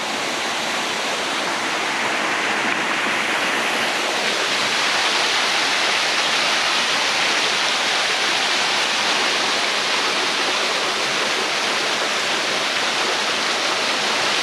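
Waterfall pouring, a steady rushing hiss of falling water that swells slightly in the first few seconds and then holds even.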